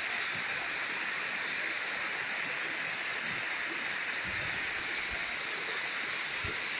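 Steady rush of running water, with a few faint low bumps in the second half.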